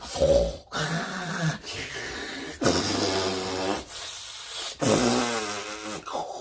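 A man snoring loudly and in an exaggerated way: a string of snores, each about a second long, following one another with only brief breaks.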